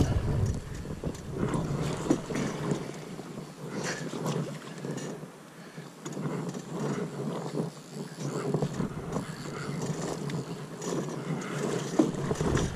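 Drift boat being rowed on a river: water swishing around the hull and oars, uneven, with scattered light knocks.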